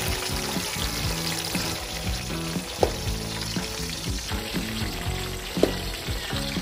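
Metal ladle knocking against the side of an aluminium cooking pot of chilies and water, two sharp knocks about three seconds apart, over a steady frying-like hiss and background music.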